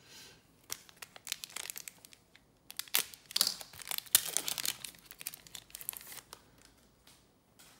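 A trading card pack's wrapper crinkling and tearing open, a run of crackles and rips that is loudest around the middle.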